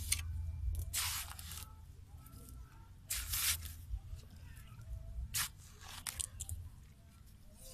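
Wet clay mud being scooped with a digging tool and slapped onto a wire-mesh fish trap: a series of wet scraping, squelching strokes, two longer ones followed by several short ones.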